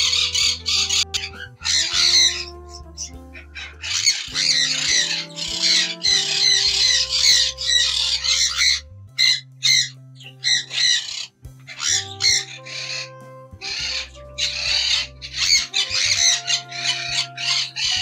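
Many caged parrots chattering and squawking in repeated bursts, over background music with sustained low bass notes.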